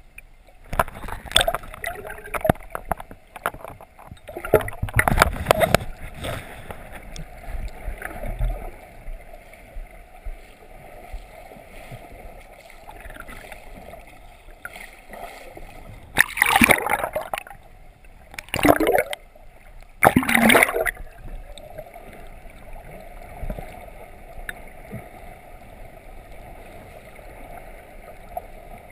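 Water heard from just below the surface by a submerged action camera in its housing: a steady muffled rushing and gurgling, broken by louder splashing surges, three of them close together a little past the middle.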